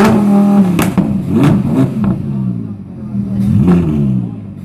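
Lamborghini Huracán's 5.2-litre V10 with a sports exhaust revved hard twice from idle, the note rising sharply and falling back each time. A few sharp cracks come from the exhaust as the revs drop after the first blip.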